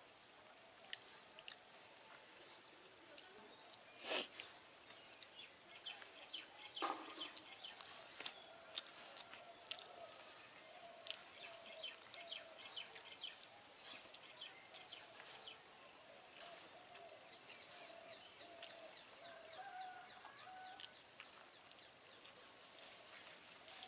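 Quiet eating sounds: fingers mixing rice on a banana leaf and soft chewing clicks, with a single sharper click about four seconds in. Faint bird calls and chirps sound behind, including a quick run of chirps near the end.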